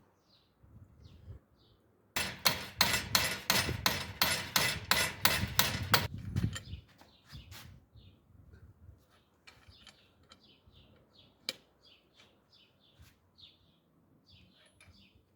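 A run of sharp, rapid knocks, about three or four a second, lasting about four seconds, with small birds chirping faintly around it.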